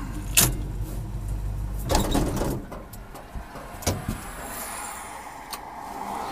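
Low engine rumble inside an antique truck's cab, which falls away about two and a half seconds in, with scattered clicks and knocks from the cab.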